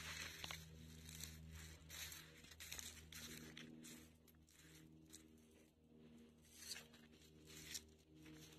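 Faint crunching and rustling of footsteps on dry grass and gravel, coming in irregular patches over a faint steady low hum.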